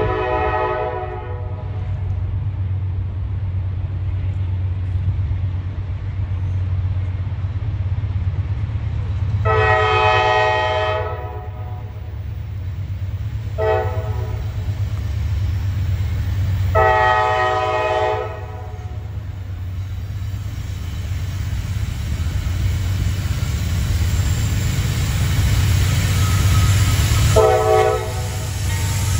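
CSX diesel freight locomotive approaching, its engine a steady low rumble growing louder, while its air horn sounds the grade-crossing signal: the end of a long blast, then long, short, long, and one more short blast near the end.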